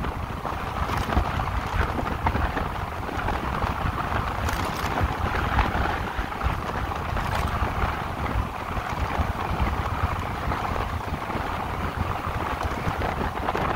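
Steady wind rush over the microphone and tyre-on-road rumble from an electric motorcycle riding along a street, with no engine note.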